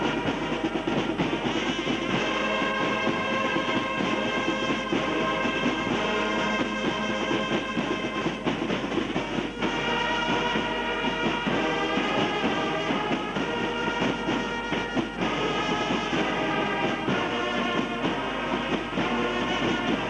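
Music with long held notes sounding together in chords, changing every second or two.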